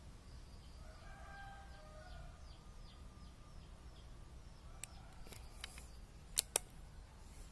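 A run of short, high, falling chirps, about two a second, mixed with a few held whistled notes. Near the end, as the air rifle and its scope camera are moved, there are light handling clicks and then two sharp clicks in quick succession, the loudest sounds here.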